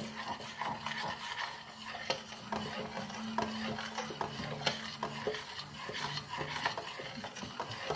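Thick cheese mass being stirred in a large stainless steel cooking pot as it cooks and thickens, with irregular scrapes and small knocks of the utensil against the pot. A faint steady hum runs underneath and stops about five seconds in.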